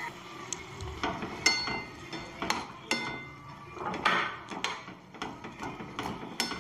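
A spoon knocking and scraping against a kadhai as noodles and vegetables are stirred, about a dozen sharp clinks, some ringing briefly.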